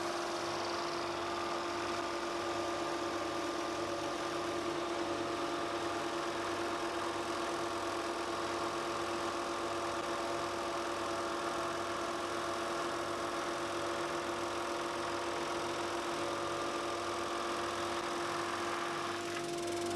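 A sander running steadily, a constant motor hum with a low, evenly repeating pulse, while it sands cured resin off the chessboard.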